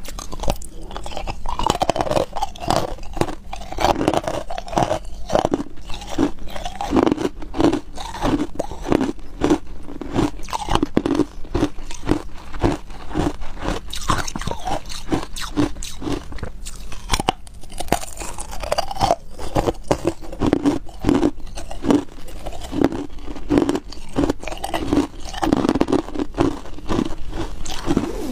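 A person biting off and chewing pieces of hard white ice: a steady run of crisp crunches, a few each second, with brief lulls between mouthfuls.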